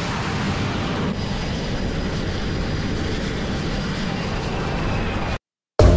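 Steady jet engine noise on an aircraft carrier's flight deck, mixed with wind. It cuts off abruptly near the end.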